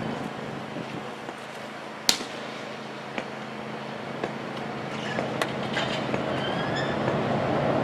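A single sharp pop about two seconds in, a baseball fastball smacking into the catcher's leather mitt, over a steady outdoor background hum with a few lighter clicks.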